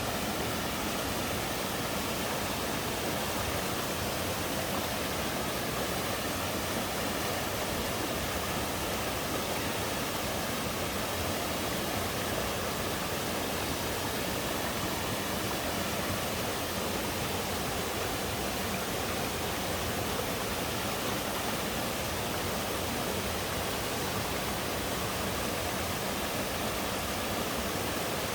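A twin mountain waterfall: a steady, unchanging rush of falling water, even across low and high pitches.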